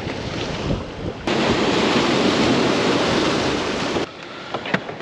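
Surf breaking on the shore under strong wind buffeting the microphone. It jumps louder about a second in and drops off suddenly near the end.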